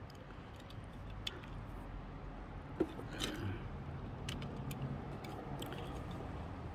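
Light clicks and taps of small diecast toy cars being handled, one lifted off and another set down on a display turntable, with the sharpest click about three seconds in. A steady low hum runs underneath.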